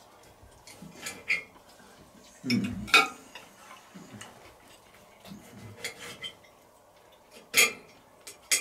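A fork clinking against a plate a few times as someone eats, the sharpest clicks about three seconds in and near the end.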